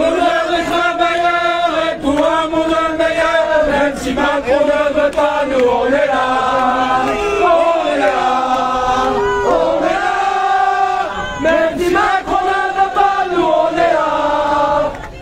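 A large crowd singing together in unison, a melody of long held notes sung by many voices.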